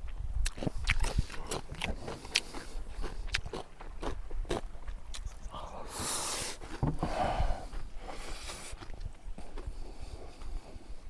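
Close-up crunching and chewing of crisp kimchi, a rapid irregular run of sharp crackles. Two short breathy rushes of noise come about halfway through.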